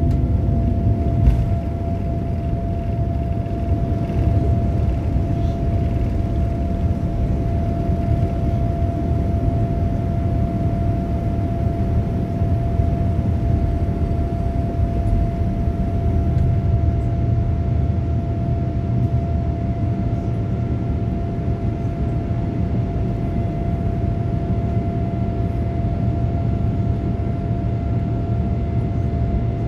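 Boeing 787-9's GEnx turbofan engines at takeoff thrust, heard inside the cabin over the wing during the climb-out: a steady low rumble with a steady high hum. A single brief thump about a second in.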